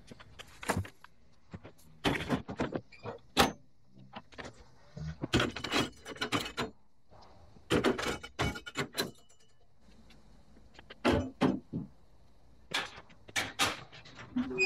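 Irregular clanks, knocks and rattles of lawn tools and a metal mesh truck rack as equipment is loaded onto a pickup. About eight seconds in, a string trimmer is set into its holder on the side rack, and near the end the rear mesh gate rattles as it is handled.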